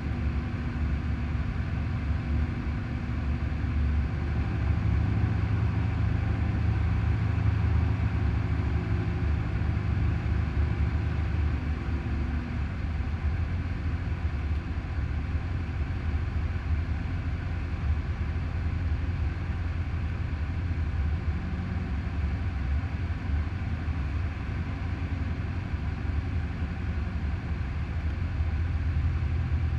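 Cessna 172's piston engine and propeller droning steadily as heard inside the cockpit, on approach to a runway. It is a low, even drone that swells slightly near the end.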